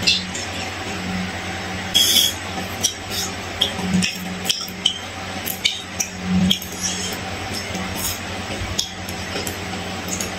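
Close-miked mukbang eating sounds: a sip from a glass of soda at the start, then a string of short, sharp mouth clicks and smacks as fried fish is eaten by hand, over a steady low hum.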